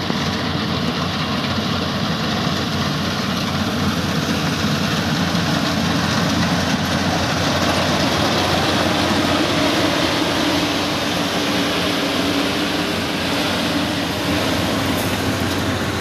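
Yanmar YH850 combine harvester running steadily as it harvests rice: a constant diesel engine hum under the dense noise of the cutting and threshing machinery.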